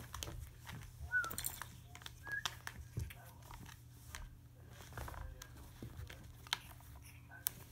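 Cat scuffling against a carpet-covered scratching post and its base: an irregular run of scrapes, rustles and soft taps from claws and fur, with a few brief high squeaky sounds.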